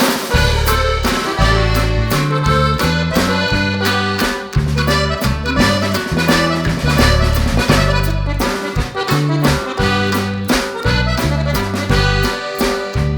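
Background music with an accordion lead over a bouncing bass line, upbeat and steady.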